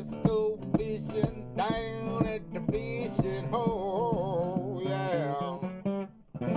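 Country song: a strummed acoustic guitar, with a held, wavering vocal line about halfway through. The music drops out briefly just before the end.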